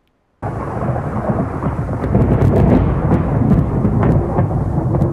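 Thunderstorm: a loud, continuous low rumble of thunder with rain, starting suddenly about half a second in, with scattered sharp crackles over it.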